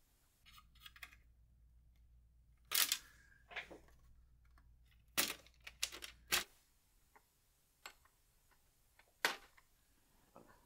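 Sharp snaps and clicks of a laptop base cover's retaining clips letting go as a plastic spudger pries the cover up around its edge. There are several separate snaps, the loudest about three seconds in and a quick run of them between five and six and a half seconds.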